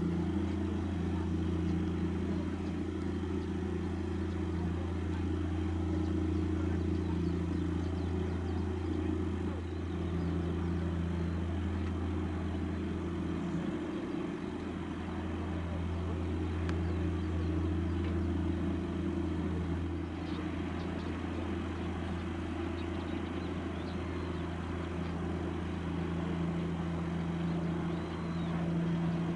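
Steady low engine drone made of a few held tones, with a brief dip about halfway through.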